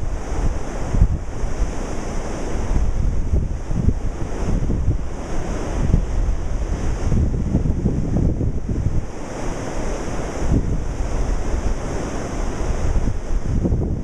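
Ocean surf washing steadily, with wind buffeting the microphone in irregular low rumbles.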